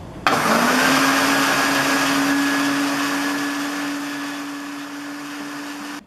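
Countertop blender switched on about a quarter second in, its motor rising briefly in pitch as it comes up to speed and then running steadily as it mixes a thin liquid batter, stopping right at the end.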